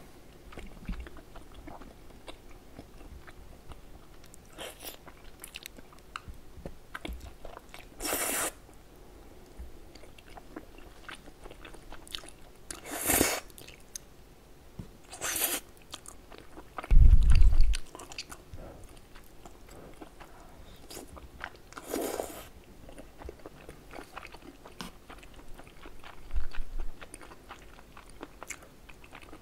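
Close-miked eating of cheese-covered tteokbokki: soft, wet chewing of chewy rice cakes and stretchy melted cheese, with several short loud slurps. One deep, loud thump comes a little past halfway.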